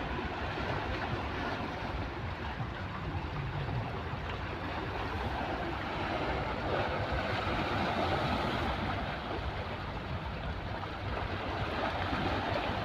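Sea waves washing against the shore as a steady rushing wash, swelling a little a few seconds in.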